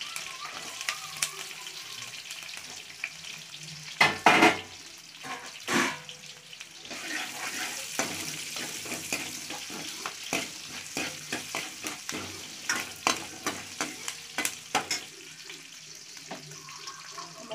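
Oil sizzling in a steel kadai as mustard seeds, cumin, fenugreek, green chillies and shallots fry for a tempering, with two louder bursts of sizzle about four and six seconds in. Later a steel ladle stirring gives quick clicks and scrapes against the pan.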